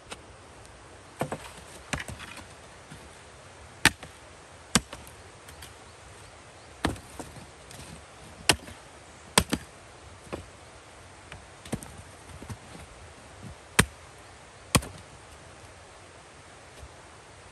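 An axe chopping old wooden planks into firewood. About a dozen sharp, irregular blows, a few coming in quick pairs.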